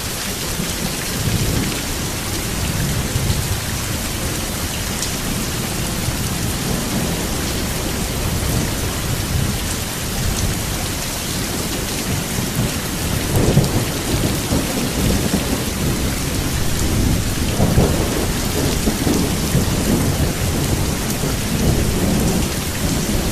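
Steady heavy rain with rolling thunder, the rumbles swelling loudest about thirteen and eighteen seconds in.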